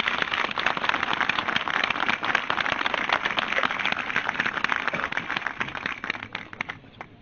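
Crowd applauding, thinning out to a few last scattered claps near the end.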